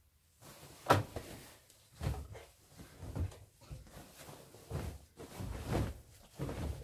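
Miele W1 front-loading washing machine's drum turning, with laundry dropping in soft, irregular thuds about once a second and a sharp knock about a second in.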